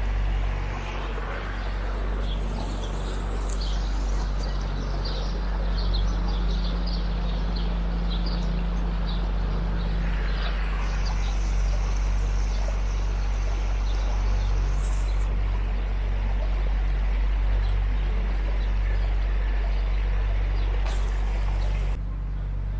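Steady low hum of a tourist boat's motor running, with small birds chirping over it during the first half.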